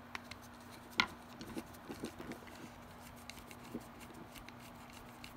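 Light clicks and taps of a square-tip screwdriver being seated in the terminal lug screw of a two-pole circuit breaker, with one sharper click about a second in and a few softer knocks after it.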